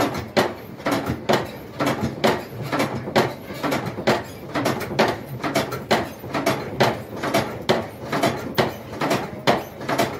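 Hand-pumped blacksmith's forge bellows worked by its long overhead lever: a fast, even run of creaks and air wheezes, about three a second, as air is blown into the coal fire.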